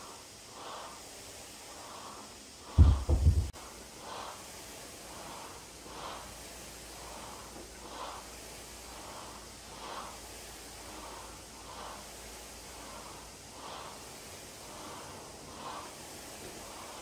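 Heavy, rhythmic breathing of a woman doing overhead presses, about one breath a second. About three seconds in, a loud heavy thud with a few quick rebounds.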